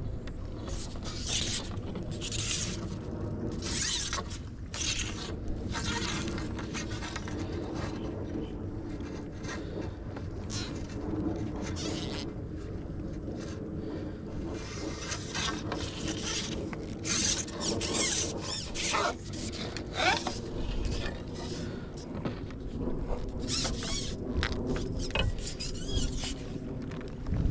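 A steady low mechanical hum with scattered clicks and scrapes over it.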